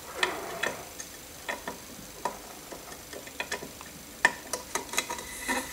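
Light, irregular clicks and taps of metal parts being handled: hands working over a linear guide rail mounted on an aluminium C-beam.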